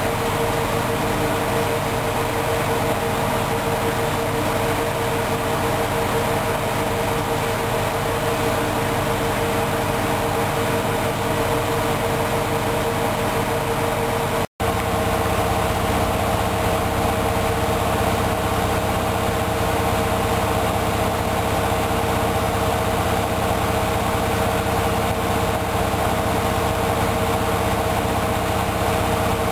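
Hoover Dynamic Wash front-loading washing machine in its final spin, a steady whine and hum of the drum turning at speed. The sound cuts out for an instant about halfway through, then carries on with a slightly changed pitch.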